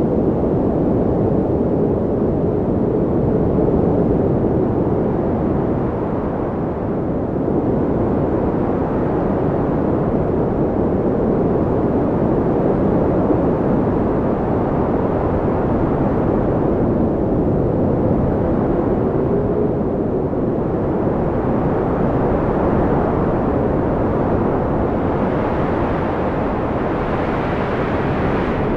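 Storm wind blowing hard: a loud, low rushing that swells and eases, growing brighter near the end.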